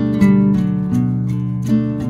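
Background music of plucked string notes, a new note coming about every half second.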